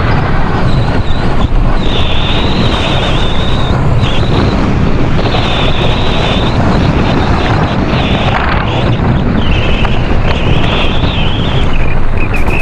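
Mountain bike riding downhill on a dirt trail: wind buffeting the onboard camera's microphone over the rumble of the tyres. A high buzz comes and goes about six times.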